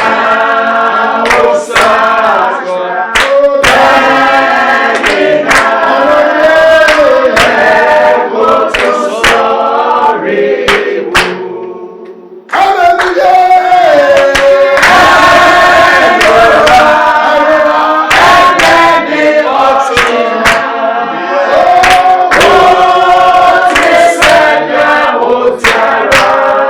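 A group of voices singing a worship song together over a steady beat of sharp hits. About halfway through it fades out briefly, then comes back louder.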